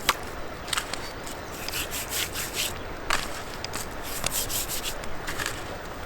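Hands rubbing salt into a whole spiny dogfish's rough skin: a run of short, irregular rasping strokes, several a second.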